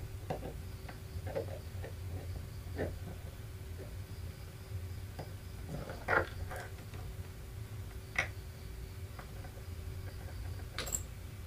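Light, scattered clicks and taps of small wires, a connector and a soldering iron being handled during bench soldering. The sharpest taps come about six and eight seconds in. A steady low hum runs underneath.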